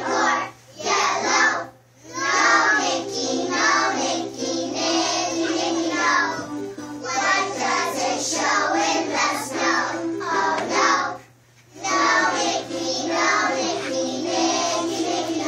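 Young children singing a song together in a kindergarten musical, with a few short breaks between lines.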